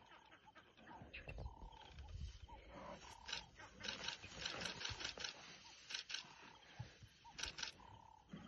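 Lioness growling low while gripping a freshly caught impala. Runs of short, sharp, high chirping calls come several times from about three seconds in and are the loudest sound.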